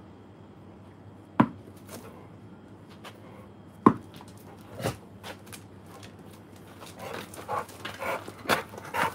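Sharp knocks of a tennis ball being tossed to dogs and caught or landing on paving stones: two loud ones about two and a half seconds apart, a softer one a second later, then a run of quieter taps and scuffling near the end.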